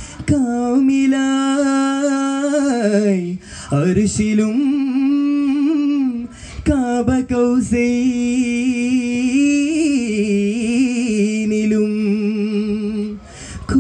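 Male group singing Vattappattu, a Mappila song form, in unison without instruments, drawing out long held notes. Short bursts of sharp handclaps fall between phrases, about four seconds in, about seven seconds in, and near the end.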